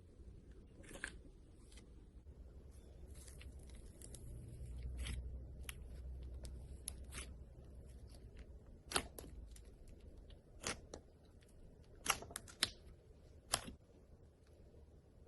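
Slime being handled, giving scattered sharp pops and crackles that come more often and louder in the second half, over faint low handling noise.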